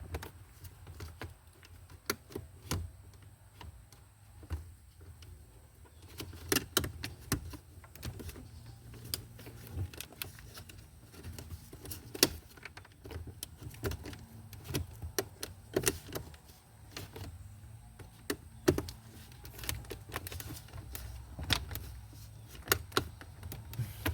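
Irregular plastic clicks, taps and knocks of a dashboard radio and climate-control console panel being handled and pushed into its tabs in a Lexus IS250's dash, with a low steady hum underneath.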